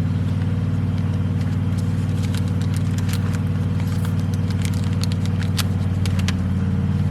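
A steady low motor hum, like an engine or compressor running nearby. Over it come light crackling and scraping clicks as root-bound tomato seedlings are worked out of their pots.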